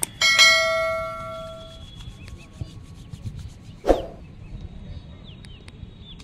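A mouse click followed at once by a bright bell ding that rings out and fades over about a second and a half, the sound effect of an animated subscribe-and-bell button. About four seconds in there is one short thump.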